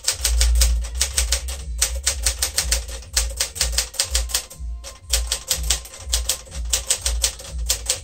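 1959 Smith-Corona Sterling manual typewriter being typed on at a quick, steady pace: a rapid run of sharp typebar strikes on the platen, with a short pause about two-thirds of the way through.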